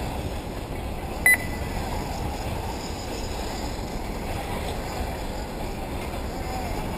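A single short, high electronic beep about a second in, from an RC race timing system, over steady low background noise.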